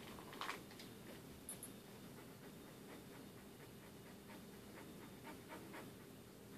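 Young yellow Labrador panting faintly, a few breaths a second, after one or two soft taps near the start.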